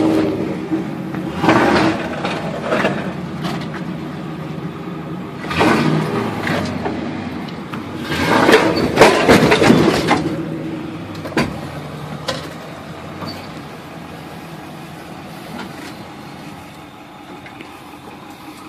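Tow truck engine running steadily, with several loud bursts of rattling and knocking noise, the longest and loudest about eight to ten seconds in.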